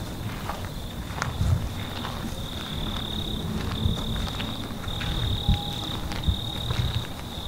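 Crickets trilling at a steady high pitch in long pulses, with scattered footsteps and thumps on dirt and grass.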